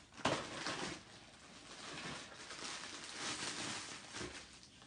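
Packaging rustling as items are rummaged for and lifted out of a gift box, with a sharper crinkle just after the start and softer, uneven rustling after it.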